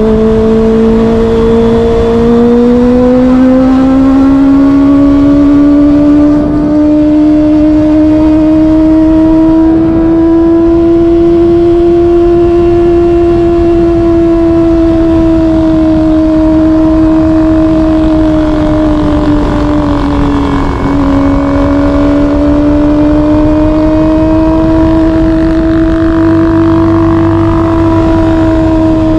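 Kawasaki inline-four sportbike engine running at high revs while cruising, its note climbing slowly, dipping briefly about two-thirds of the way through and rising again. Wind rushing over the microphone sits underneath.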